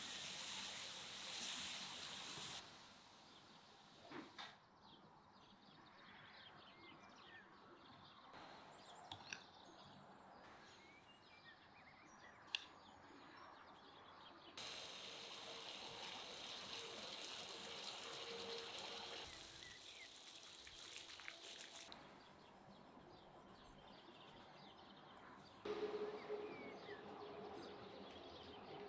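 Faint outdoor ambience with birds chirping now and then, the background changing abruptly several times, and a few small clicks and knocks.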